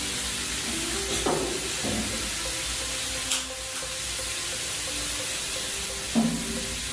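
Slices of meat sizzling steadily on an electric tabletop grill, with faint background music.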